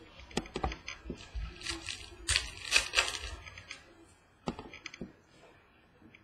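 Trading cards being flipped through by hand: a run of quick clicks and snaps of card edges, with a stretch of sliding, rustling card stock about two seconds in.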